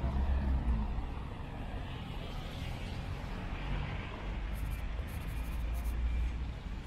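Street traffic passing: a steady low rumble of car engines and tyres on a wet road.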